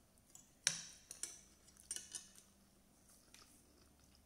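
Metal spoon and fork clinking against a plate: one sharp clink less than a second in, then several lighter clinks and scrapes.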